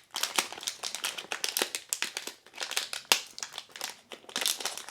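Plastic packaging crinkling and rustling in irregular bursts as a small electronics module is handled and pulled at inside its bag.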